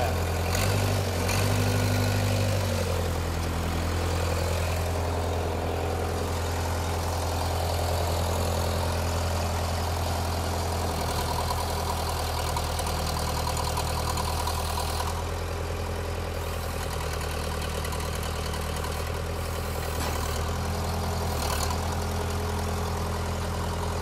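Case 580E backhoe loader's diesel engine idling steadily, with a slightly louder, higher-pitched stretch in the first couple of seconds.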